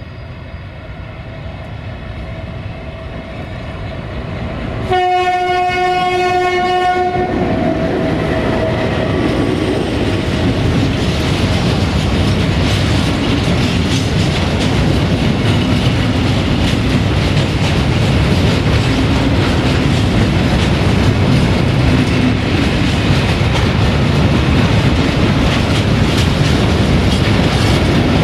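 BR232 'Ludmilla' diesel locomotive approaching, its engine drone growing louder. About five seconds in it sounds one horn blast lasting a couple of seconds. The freight wagons then roll past with a steady rumble and a clickety-clack of wheels over the rail joints.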